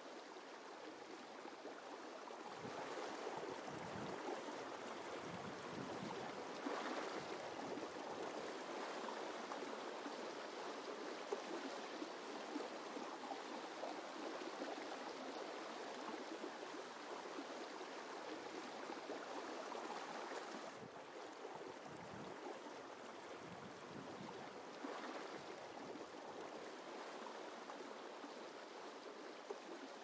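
Faint, steady sound of river water flowing, growing a little louder about three seconds in and easing back slightly about two-thirds of the way through.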